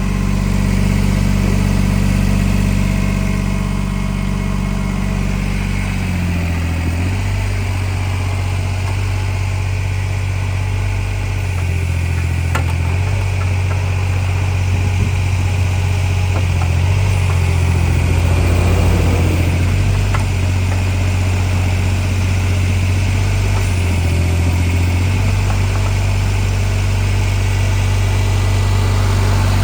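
Yanmar YB10 mini crawler excavator's diesel engine running steadily. Its pitch drops about six seconds in and shifts several more times, with a brief rise in noise around the middle.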